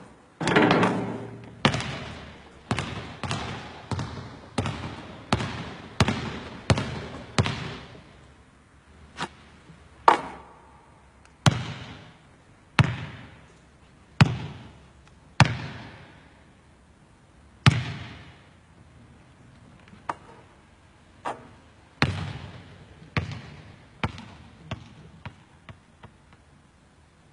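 A long series of sharp thuds, each dying away in a short echo. They come in quick succession for the first several seconds, then more sparsely and unevenly, with another quick run near the end.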